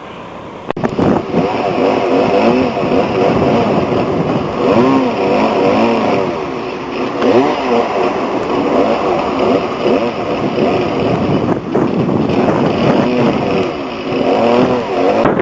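Chainsaw engine running and revving up and down again and again. It starts abruptly just under a second in.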